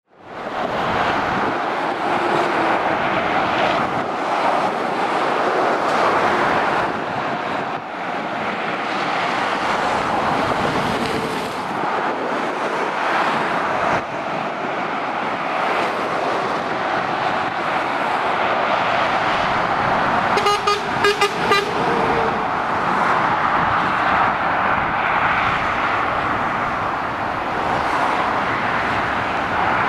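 Steady motorway traffic, with the tyres and engines of lorries and cars passing below. About two-thirds of the way through, a vehicle horn sounds a rapid run of short toots lasting about a second.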